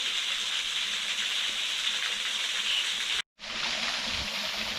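Steady rush of water from a small woodland waterfall running into its pool. About three seconds in the sound drops out for an instant, then resumes slightly duller.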